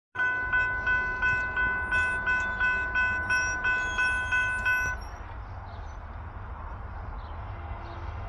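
A railroad bell ringing in quick, evenly spaced strikes, about three a second, which stops abruptly about five seconds in. A low rumble runs underneath throughout.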